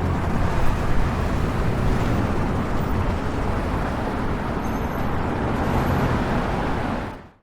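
City street traffic: a steady wash of vehicle engines and tyre noise with a low engine rumble underneath, fading out at the very end.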